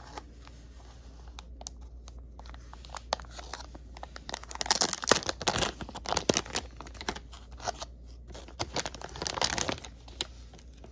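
Clear plastic bag crinkling and rustling as a cassette Walkman is slid out of it, with scattered handling clicks. The crinkling comes in two dense spells, the louder about four to six seconds in and another near the end.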